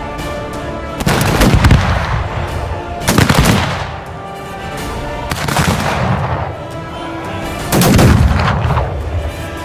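Gunfire: four heavy shots or short bursts about two seconds apart, each with a long echoing tail, over a steady tonal hum.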